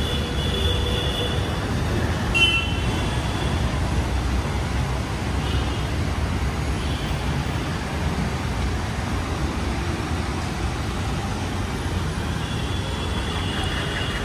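Steady street traffic noise, with the low rumble of cars, autorickshaws and scooters passing on a wet road. Short high-pitched tones sound a few times, mostly near the start and near the end.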